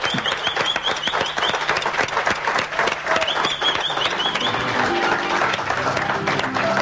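Applause: many hands clapping steadily after a piano performance. Music comes in softly under the clapping near the end.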